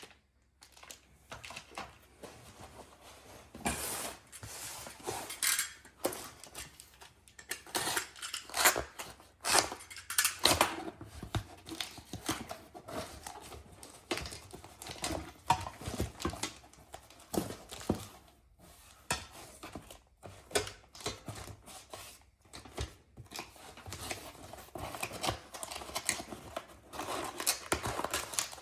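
Hands unpacking parts by hand: irregular rustling and tearing of packaging, with sharp clicks and light clinks of hard parts being handled.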